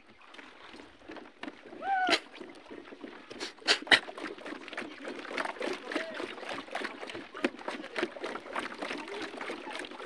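Water sloshing and slapping around floating plastic pontoon cubes, making many small irregular knocks and clicks, with two sharper knocks about four seconds in. A short voice sound that rises and then falls comes about two seconds in.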